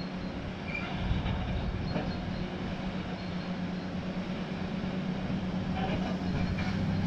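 Wheel loader's diesel engine running steadily under load while its plow blade pushes through deep snow: a steady low hum with a hiss of noise over it.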